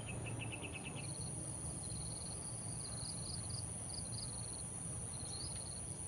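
Insects buzzing steadily at a high pitch, with short quick chirping trills over them and a low rumble underneath; a run of about eight rapid chirps in the first second.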